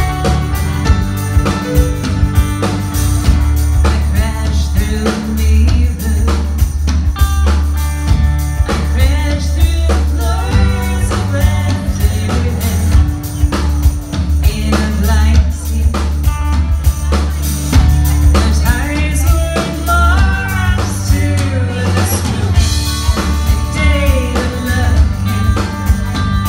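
Live band playing a song with drum kit, bass guitar and acoustic guitar, with a heavy, steady bass line. A woman's lead vocal comes in about a third of the way through and carries the middle of the passage.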